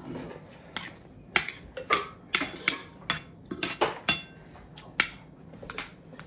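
Metal spoon and fork clinking and scraping against a ceramic dinner plate while eating: about a dozen sharp, irregular clinks, some ringing briefly.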